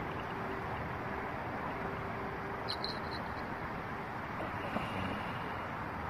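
Steady outdoor city noise by the river at night: a constant hiss and hum of distant traffic. About three seconds in there is a brief high-pitched chirp of a few short pulses, and a faint tick comes near the end.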